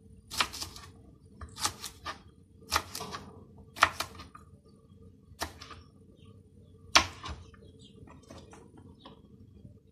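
Kitchen knife chopping green beans on a plastic cutting board: six sharp knocks about a second apart, the loudest near the middle, then only a few faint clicks near the end.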